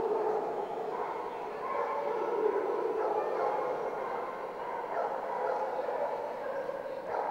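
Many dogs barking and yipping at once, a steady din that echoes through a large hall.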